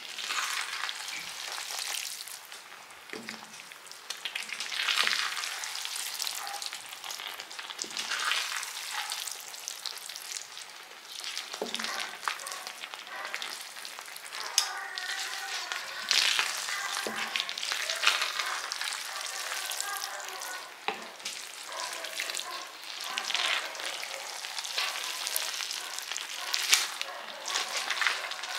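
Spaghetti in tomato sauce sizzling in a hot pan as it is tossed and mixed with two wooden spoons, with wet stirring noises and frequent light knocks of the spoons against the pan.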